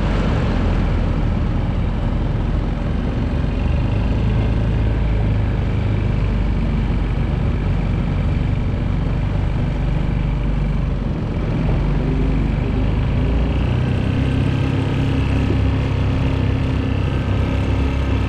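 An engine running steadily under way, a constant low drone with a rushing noise over it; its note shifts slightly about thirteen seconds in.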